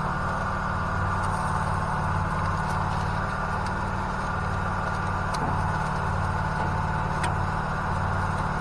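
Small gasoline generator engine running steadily, a low pulsing hum, with a couple of faint clicks past the middle.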